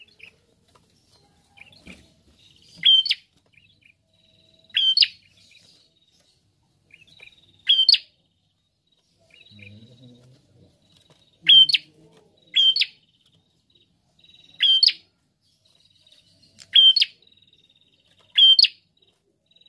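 Caged rufous-headed prenjak calling: about eight loud, sharp, clipped calls repeated every one to three seconds, with a faint thin high note trailing between some of them.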